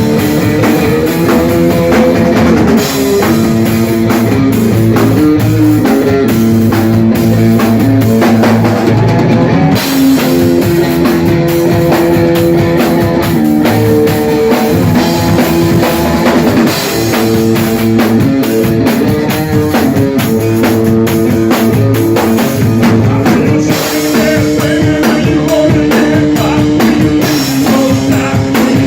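Live rock band playing an instrumental passage: drum kit, electric guitar and bass, loud and continuous.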